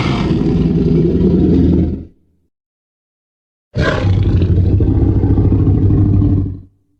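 Two Tyrannosaurus rex roar sound effects, loud and deep. The first is already sounding and ends about two seconds in; after a gap of dead silence the second starts near the four-second mark and lasts about three seconds.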